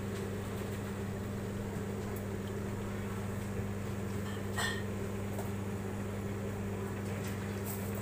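Steady low electrical hum of a running motor. A short faint chirp about halfway through.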